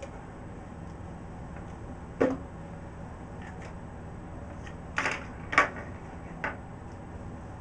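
Objects knocked down onto a tabletop: one thud about two seconds in, as a mayonnaise jar is set on the table, then three sharper knocks a little later, the second of them the loudest, over a steady low room hum.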